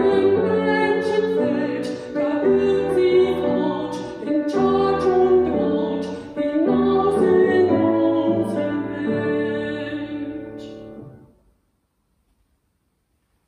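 A woman singing with grand piano accompaniment; the music ends about eleven seconds in.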